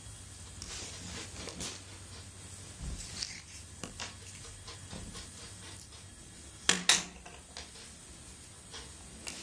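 Hands handling and unwinding thin insulated hookup wire from a coil on a wooden table: faint rustling and small clicks, with two sharp taps close together about seven seconds in.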